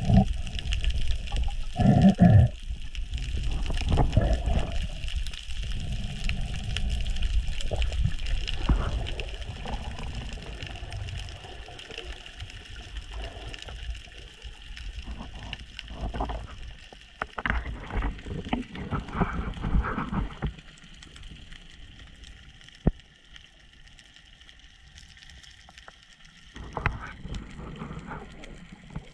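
Water rushing and gurgling around the camera in the sea, with irregular bubbling bursts. It grows quieter in the last third, with one sharp click about two-thirds of the way through.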